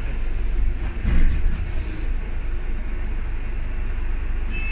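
Low, steady rumble of a bus's engine and running gear heard from inside the passenger cabin, with a louder swell about a second in.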